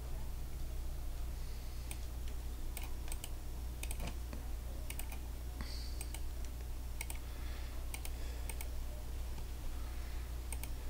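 Computer keyboard being typed on in scattered short runs of key clicks, with a steady low hum underneath.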